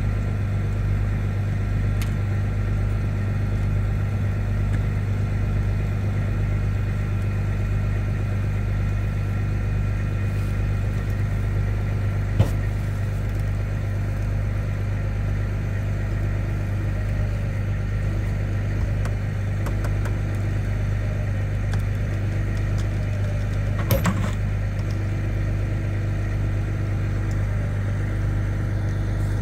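Heavy wrecker tow truck's diesel engine idling steadily. A sharp click or knock sounds about twelve seconds in, and another about twenty-four seconds in.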